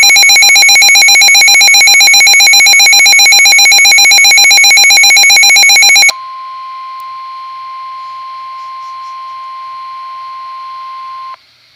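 Weather radio alert alarm: a loud, rapidly pulsing electronic beep for about six seconds. It is followed by the NOAA Weather Radio 1050 Hz warning alarm tone, a steady single tone, which cuts off just before the end. It signals an incoming severe thunderstorm warning broadcast.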